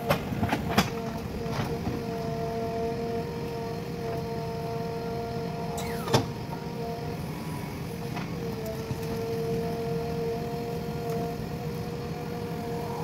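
JCB 3DX backhoe loader's diesel engine running under digging load with a steady whine, punctuated by sharp clanks from the backhoe arm and bucket, several in the first two seconds and the loudest about six seconds in.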